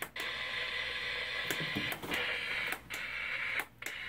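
Static hiss from the small speaker of a Snap Circuits FM radio while it is tuned between stations, cut off briefly several times as the scan button is pressed to seek a station.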